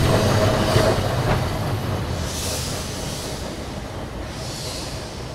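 Vintage street tram running past on its rails: a steady rumble with a brief thin squeal in the first second, fading as it moves away, with two short hisses later on.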